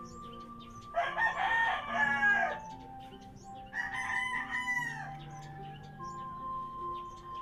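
A rooster crowing twice, a long crow about a second in and a shorter one soon after, over soft background music with held notes.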